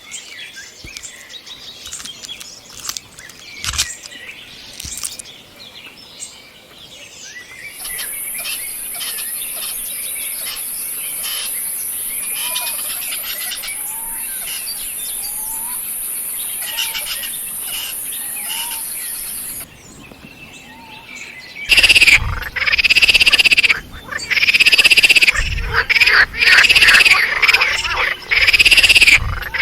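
Outdoor wildlife ambience: scattered bird chirps, then a steady high buzz under small chirping calls. About 22 seconds in, loud bursts of rapid repeated chattering calls start.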